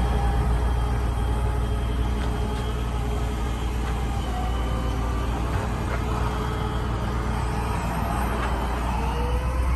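Truck engine running steadily under the hydraulic load of a Versalift VST-50 aerial lift, with a whine from the hydraulic system that holds several steady tones while the boom is operated. Near the end the whine's pitch bends up and back down as the boom's motion changes.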